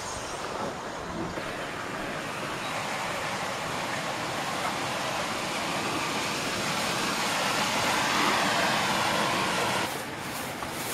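Steady rushing, rustling noise from a camera fixed to a wooden canoe as the canoe is turned over and lifted onto the shoulders. The noise swells toward the middle and drops off sharply about ten seconds in.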